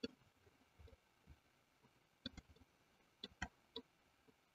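Faint computer mouse clicks over near-silent room tone: one click at the start, then about five scattered clicks from about two seconds in.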